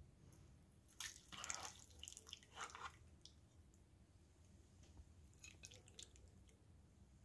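Metal serving spoon scooping baked cheesy pasta casserole out of a metal baking pan, with soft wet squishing for a couple of seconds about a second in. A few faint clicks follow near the end as the helping goes onto a plate.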